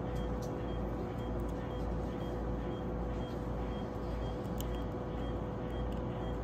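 A steady mechanical hum with one constant tone, and a few faint small clicks.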